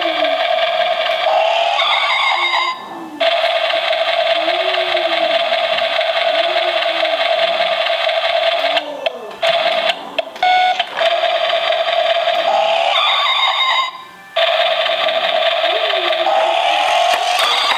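Remote-control toy car transporter truck giving off a loud, steady buzzing whine at one fixed pitch, with a faint repeating warble beneath it; the whine breaks off briefly a few times and starts again.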